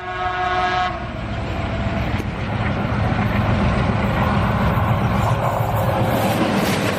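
A train horn sounds for about a second, then the steady rumble of a running train carries on.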